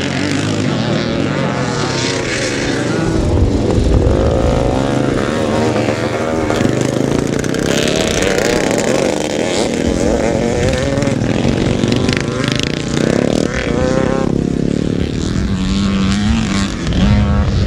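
Several vintage motocross motorcycles racing, their engines revving up and down with overlapping, wavering pitches as they pass.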